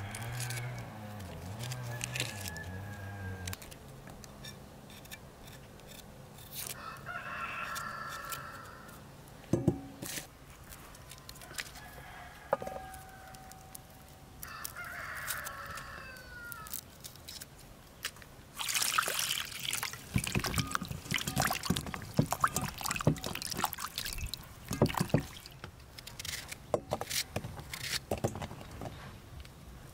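A rooster crowing twice, each call about a second and a half long, with the second falling in pitch. Near the end comes a long run of quick crackles and clicks from a small knife peeling and cutting dry onion skin.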